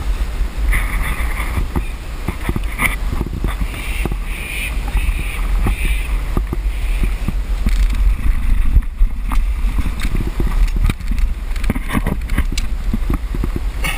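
Wind buffeting the camera microphone as a steady low rumble, with scattered scrapes and knocks of the climber's hands and clothing against the rock.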